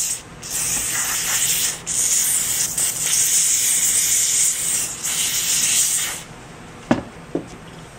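Aerosol cleaner sprayed from a can into a pump's seal mount ring to clean it out: a loud, high hiss broken by a few short pauses, stopping about six seconds in. A single sharp knock follows about a second later.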